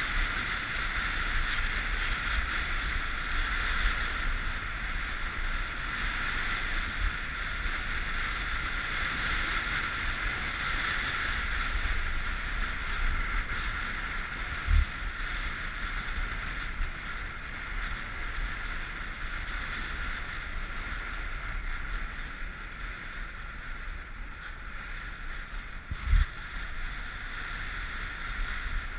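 Steady hiss and rumble of a snowboard sliding and carving over groomed, packed snow, mixed with wind. Two short thumps stand out, about fifteen seconds in and again near the end.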